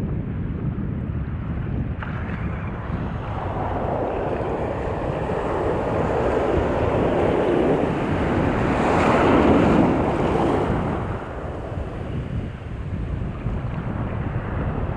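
Ocean surf: a wave washes in, building over several seconds to its loudest about nine to ten seconds in, then falling away, over a steady low rumble of wind on the microphone.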